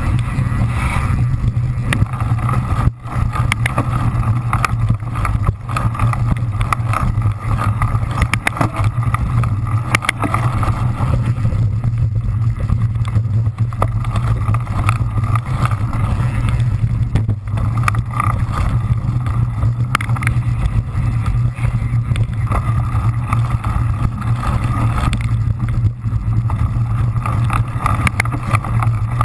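Cyclocross bike ridden fast over rough dirt and sand, heard from an on-board camera: a loud, steady rumble of tyres and frame vibration with frequent sharp knocks and rattles from bumps.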